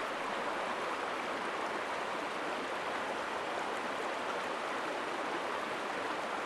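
A shallow river running over rocks: a steady rush of flowing water that does not change.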